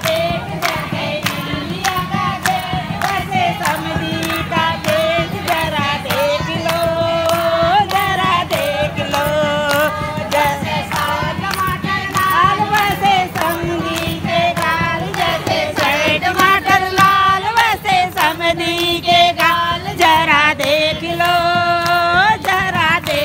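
A group of women singing together in chorus, kept in time by steady hand-clapping.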